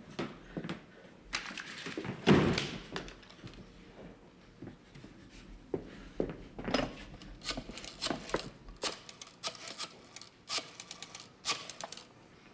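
A loud thump about two seconds in, then scattered knocks and clicks of handling a black rotary desk telephone: the receiver lifted and the number dialled.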